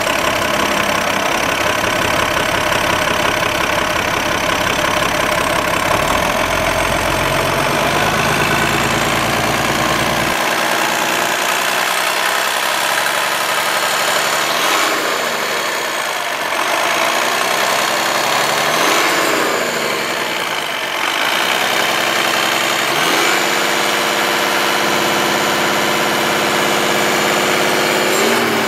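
Diesel engine of a 2007 Peterbilt 340 crane truck idling steadily, heard up close in the open engine bay.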